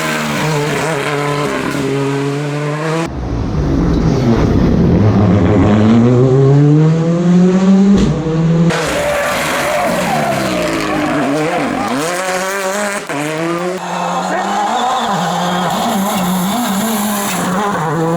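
Rally cars at full throttle on a stage, engines revving hard with the pitch climbing through the gears and dropping at each shift, heard in several short clips cut together. One clip has a long rising run, and another has the note swooping down as a car passes.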